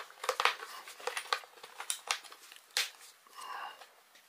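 Plastic clicks and scrapes as an AAA battery is handled and pushed into the battery compartment of a Rii RK200 wireless keyboard.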